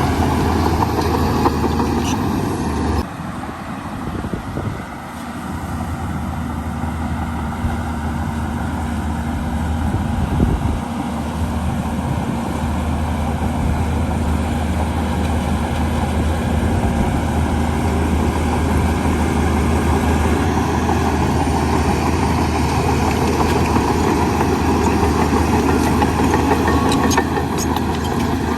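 Diesel engine of heavy earthmoving machinery running with a steady low hum, the sound changing abruptly about three seconds in.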